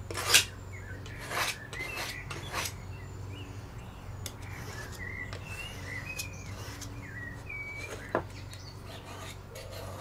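Kitchen knife being sharpened on an oil stone: a sharp knock at the start, then a few scraping strokes of steel on stone over the first few seconds, and a lone scrape near the end. Birds chirp in the background in the middle.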